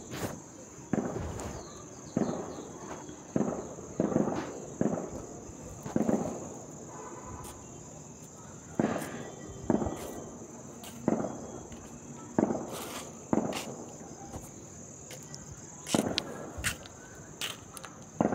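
Irregular soft knocks and crackles, roughly one a second with a couple of short pauses: fingers rubbing and pinching through a dog's fur and bedding right at the phone's microphone while picking off ticks. A steady high-pitched tone runs underneath.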